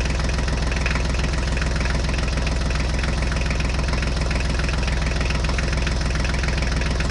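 Tractor engine running steadily at idle with a fast, even chug.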